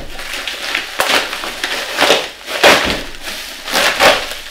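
Crinkly paper packaging lined with bubble wrap being pulled open and unwrapped by hand, rustling and crackling in a run of loud bursts, about four of them the loudest.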